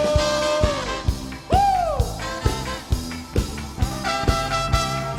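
Live pop band playing an upbeat groove with a steady drum beat. A long held sung note trails off within the first second, a single swooping note rises and falls about a second and a half in, and fuller band chords come in near the end.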